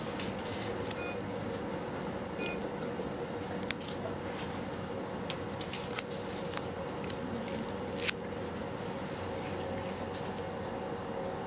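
Gloved hands handling plastic dialysis tubing, a line clamp and medical tape make scattered sharp clicks and rustles. The loudest come about four, six and eight seconds in, over a steady machine hum.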